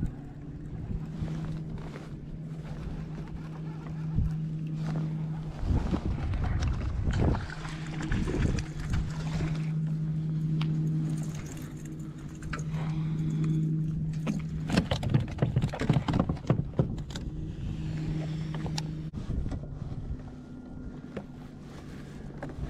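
Electric kayak trolling motor humming steadily, the MotorGuide Xi3, with knocks, clatter and rustling of gear being handled in the kayak, thickest a little past the middle.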